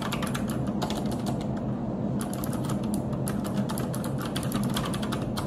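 Typing on a computer keyboard: quick key clicks in short runs with brief pauses between them, over a steady low hum.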